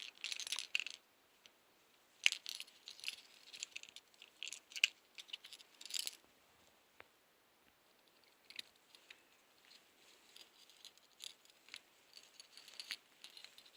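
Small plastic and metal parts of a disassembled spy camera pen clicking and rattling as they are handled and pried apart, in quick clusters for the first several seconds, then lighter scattered clicks.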